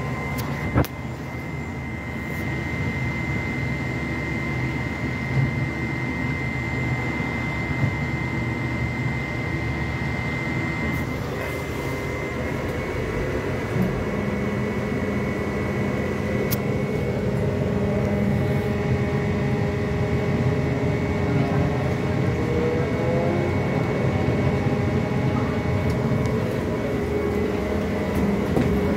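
MAZ-203T trolleybus running, heard from inside the passenger cabin: a steady high whine over road and body noise, with a lower hum coming in about halfway through and a short rising tone later. One sharp click sounds about a second in.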